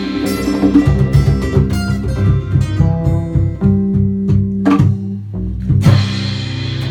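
Live acoustic band music: acoustic guitar and bass playing with occasional percussion hits.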